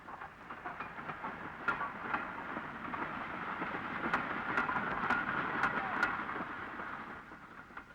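Train rolling past, with sharp wheel clicks over the rail joints; the sound builds to a peak about two-thirds of the way through, then fades. This is Flying Scotsman with her regulator shut, being hauled by an electric locomotive, so no steam exhaust beats are heard.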